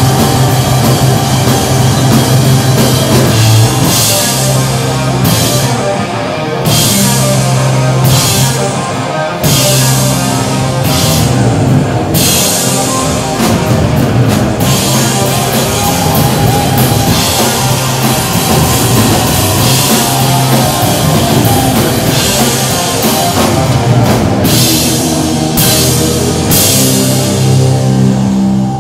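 A live heavy rock band plays loud, with electric guitars, bass guitar and a drum kit, and the cymbals crash again and again.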